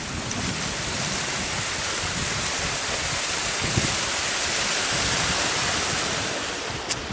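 A Scottish hill burn (small mountain stream) flowing, a steady rushing hiss of running water that eases a little near the end.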